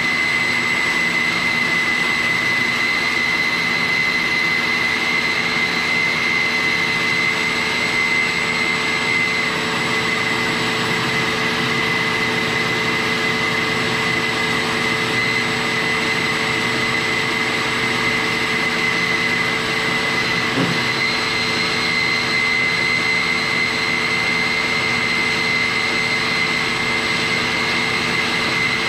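A shop vacuum drawing dust from a Grizzly 17-inch band saw, both running steadily, with a high, even whine from the vacuum over a lower hum.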